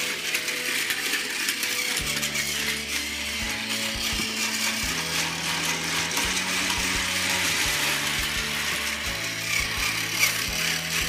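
A steady mechanical rattling whir of a small geared mechanism, with background music whose low notes change about once a second.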